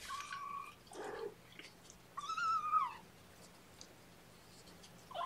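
Young kittens mewing: three high cries, the longest and loudest about two seconds in, dropping in pitch as it ends.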